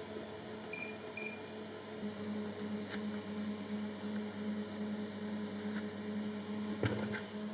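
Thermamax TIG welder switched on and humming steadily, with two short electronic beeps about a second in as its settings are dialled in. Then come a few light knocks and rustles as leather welding gloves and a welding helmet are handled.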